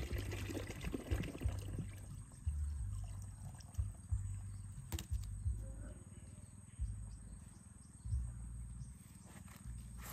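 Low, gusty rumble of wind buffeting the microphone, with crackly rustling in the first two seconds and a single sharp tap about five seconds in.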